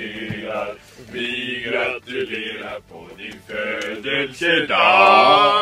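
Male voices chanting in long, drawn-out pitched tones, broken into separate held notes. The loudest and longest note comes near the end, with a wavering pitch.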